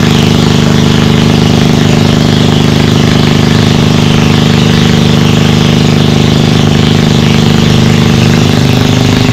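Small engine, likely driving the water pump that drains the pond, running steadily at an even speed.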